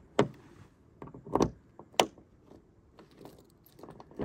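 A few sharp clicks and clunks of keys and a car door lock and handle being handled, the loudest about a second and a half and two seconds in.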